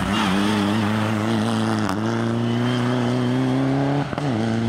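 Mitsubishi Lancer Evolution IX rally car's turbocharged four-cylinder engine pulling hard under load, its pitch slowly rising. There is a brief break about two seconds in, and a short lift with a dip in pitch about four seconds in before it pulls again.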